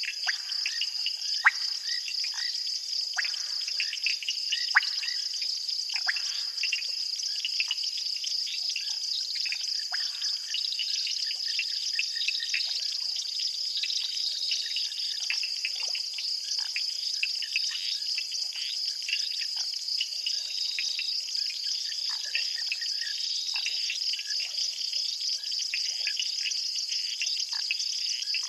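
Night chorus of insects: a steady, high pulsing trill, with many short chirps and clicks from frogs scattered through it.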